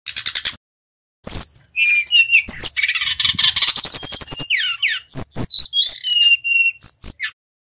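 Male brown-chested jungle flycatcher singing a fast, varied song. It opens with a short rapid rattle, then after a brief pause runs through sharp whistles, buzzy trills and sliding notes, with one held whistle near the end.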